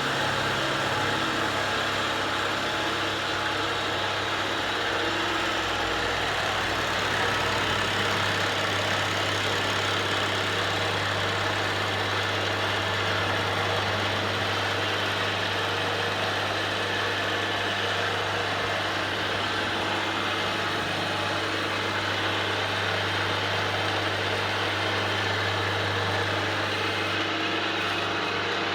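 Small milling machine running and cutting a workpiece while its table is driven slowly by a homemade power feed made from an old battery drill, bicycle sprockets and chain. A steady, even machine drone with a low hum that does not change.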